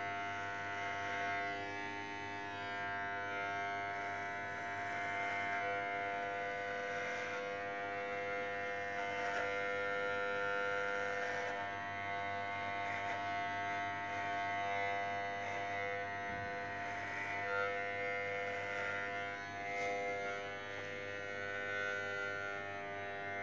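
Corded electric hair clippers running with a steady buzzing hum as they shave long hair off a head, the tone shifting slightly as the blades work through the hair.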